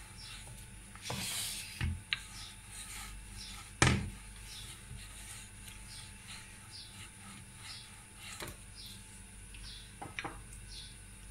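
Wooden rolling pin rolling and rubbing over stuffed paratha dough on a rolling board, with a few knocks of the pin against the board; a sharp knock about four seconds in is the loudest.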